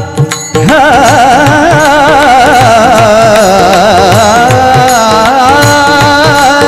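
Kirtan singing: a high, ornamented vocal line held long and wavering with heavy vibrato, without clear words, over a steady drum beat. It follows a brief break about half a second in.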